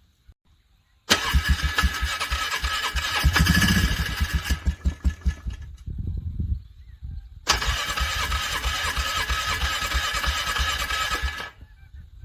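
ATV's electric starter cranking a cold engine twice, each time for about three to four seconds. After the first crank the engine chugs unevenly for a couple of seconds and dies. The second crank does not catch: the engine is struggling to start in the freezing cold.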